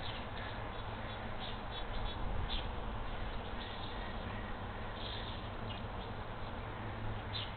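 Steady hiss and low hum of a nest-box camera's microphone, with faint short high chirps or ticks about once a second.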